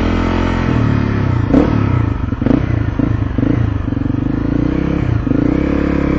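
Motorcycle engine running steadily while riding, with a few short knocks about one and a half to three and a half seconds in.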